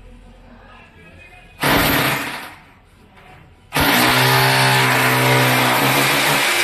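Corded electric drill boring into a ceramic-tiled wall: a short burst of drilling a little under two seconds in, then steady drilling from about four seconds in, a motor hum under a grinding hiss.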